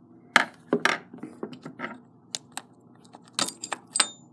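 Light, irregular clicks and taps of small metal parts as a window lock and its screw are handled and worked loose by hand.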